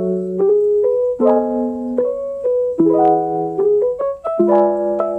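Background music: a piano-like keyboard playing a melody over chords, with notes struck one after another above a held bass note.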